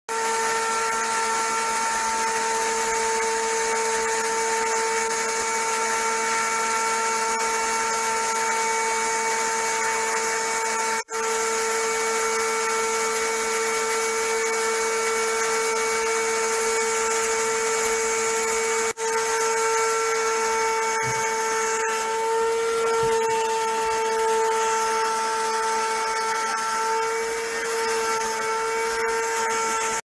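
Canister vacuum cleaner motor running steadily in blower mode, a loud whine over rushing air. The sound cuts out for an instant twice, and the pitch wavers slightly near the end.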